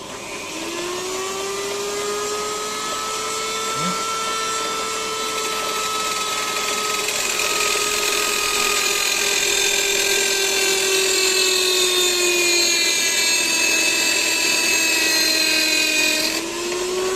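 Small handheld power tool's motor running with a steady whine that drifts slowly in pitch, briefly dropping lower near the end before picking up again.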